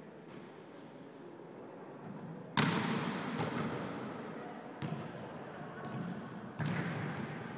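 Volleyballs being struck during a drill: three sharp slaps about two seconds apart, the first the loudest, each echoing and fading in a large gym.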